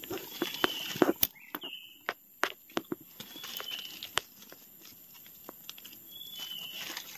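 Dry leaf litter and twigs rustling and snapping underfoot and under hand, sharp snaps clustered in the first half. A bird gives a few short whistled calls.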